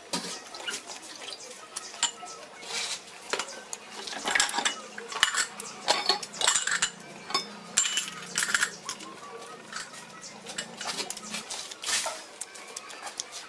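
Chopsticks clicking and scraping against a ceramic plate as a salad of shrimp, beef and vegetables is tossed: a steady, irregular run of light clinks.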